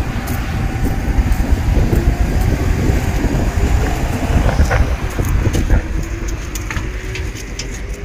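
Steady low rumble of a road vehicle with wind noise on the microphone, a faint tone rising slowly in pitch over the last few seconds, and a few light clicks.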